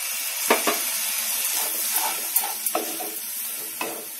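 Onion-tomato spice masala sizzling in hot oil in a non-stick pan just after a splash of water has gone in, while a wooden spatula stirs it, scraping and tapping against the pan. There are a few sharp clicks from the spatula over a steady sizzle.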